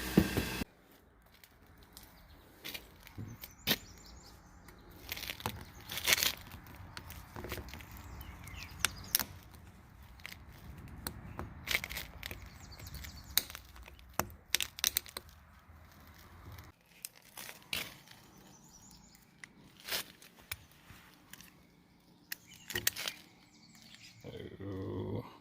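Irregular sharp clicks and knocks of tools and metal parts being handled, over a low hum that stops about two-thirds of the way through.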